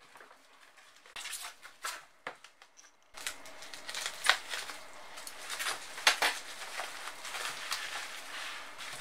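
Paper and plastic packaging being handled: a padded envelope rustling, then bubble wrap crinkling and crackling as it is cut open and unwrapped by hand, with a couple of sharp snaps in the middle.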